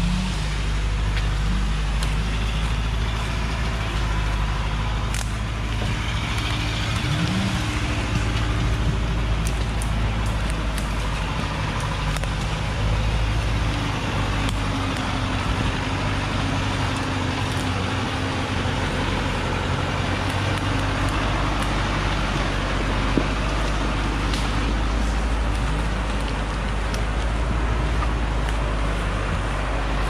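Diesel engine of a small log truck, loaded with acacia wood, running steadily on a steep hillside, a continuous low drone with a few brief small rises in pitch.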